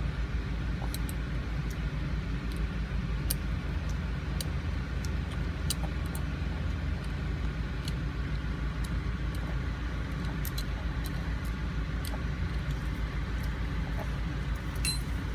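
Steady low mechanical rumble, with faint, scattered light ticks of a steel hand scaler working on a dog's teeth.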